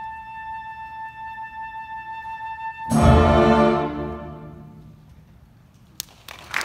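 School concert band of woodwinds and saxophones holding one soft high note, then sounding a loud full chord about three seconds in that rings out and fades away in the hall. A click and a rush of noise come at the very end.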